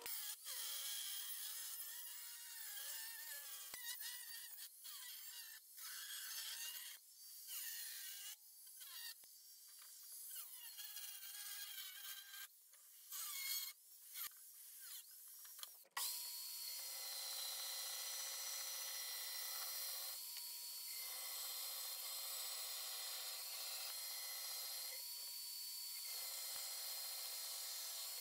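Angle grinder cutting steel sheet in short passes, its whine dipping and rising as it loads up and stopping several times. A bit over halfway through, it gives way to a steady bench power tool running as a piece of steel plate is fed into it.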